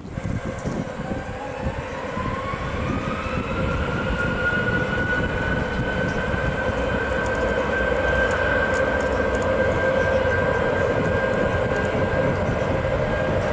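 Boeing 737-800's CFM56 turbofan engines at takeoff power: a whine rises in pitch over the first few seconds, then holds steady over a growing rumble as the jet accelerates along its takeoff roll.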